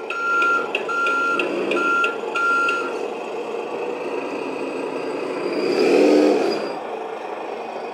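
Sound module of a 1:14 Volvo FMX RC dump truck playing a truck diesel running, with a reversing beeper sounding four evenly spaced beeps and then stopping. About six seconds in, a louder swelling sound with a hiss rises and fades.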